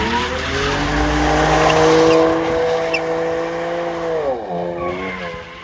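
BMW doing donuts: the engine is held at high revs while the rear tyres spin and squeal. The revs drop sharply about four and a half seconds in.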